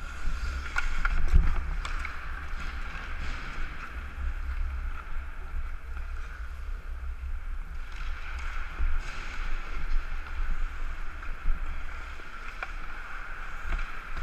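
Ice-hockey skating heard through a helmet-mounted action camera: steady wind rumble on the microphone and the hiss of skate blades on the ice, with a few sharp knocks in the first two seconds.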